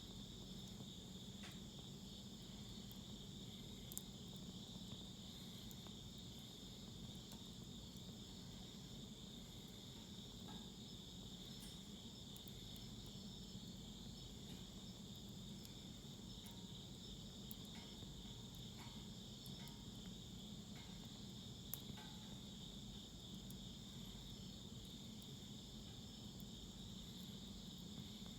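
Crickets chirping steadily as a continuous high trill, with a few faint sharp pops of burning wood crackling in a fire pit.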